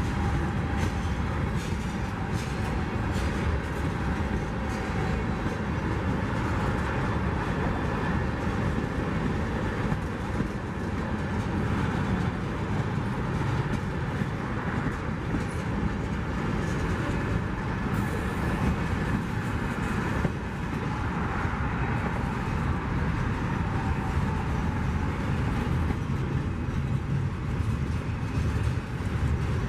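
Freight cars of a CSX freight train rolling past close by: a steady rumble of steel wheels on rail, with a run of clicks from the wheels crossing rail joints.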